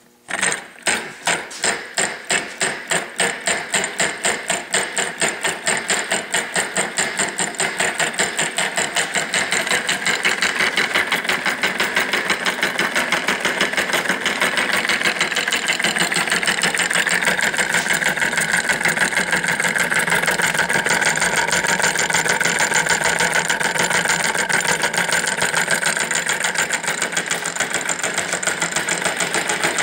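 Homemade solenoid engine on 120 V DC: the solenoid pulls the piston rod once per turn, switched by a cam-worked micro switch, making a rhythmic mechanical clacking. It starts at a few strokes a second and speeds up over the first ten seconds or so into a fast, steady clatter.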